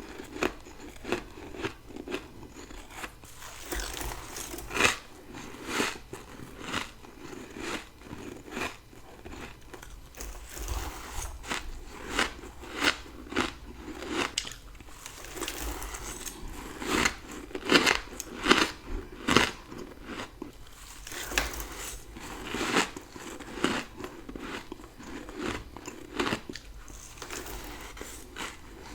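Close-miked crunching bites and chewing of freezer frost grown with a dry humidifier: a steady run of sharp, crisp crunches, one or two a second, with softer crackling between them as the frost is chewed.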